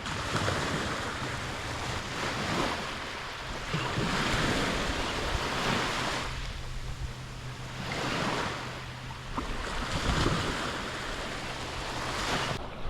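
Surf breaking and washing up the beach, swelling and fading every couple of seconds, with wind buffeting the microphone.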